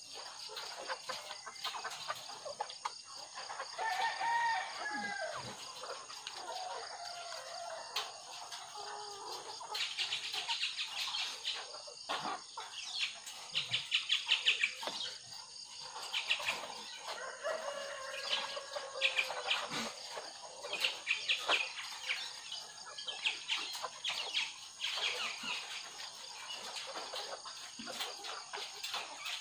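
A flock of caged white ready-to-lay pullets calling: a few drawn-out calls that bend up and down, and quick trains of rapid clucks, over a faint steady high hiss.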